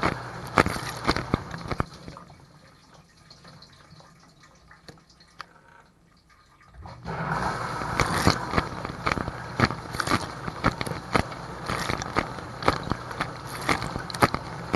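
Water spraying and splashing inside a running Whirlpool dishwasher, with many sharp taps. The spray dies down about two seconds in and starts again about seven seconds in.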